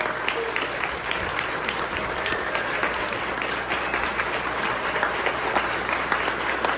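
Crowd applauding: dense, steady clapping from many hands, ending abruptly with a cut.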